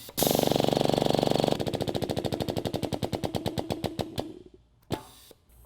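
Flow-form riveting tool cycling under its trigger to set the rivet, a loud, rapid buzzing pulse; partway through the pulses slow and fade out as the rivet is set, then a single short click.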